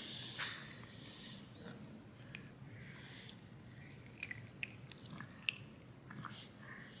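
Strawberry Pop Rocks popping candy crackling in a baby's mouth as she eats it: faint, irregular small pops and clicks.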